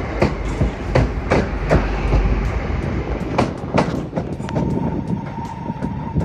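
Class 323 electric multiple unit rolling into the platform: a low rumble with the wheels clacking irregularly over rail joints, the clacks thinning out after about four seconds. A steady high tone comes in about four and a half seconds in.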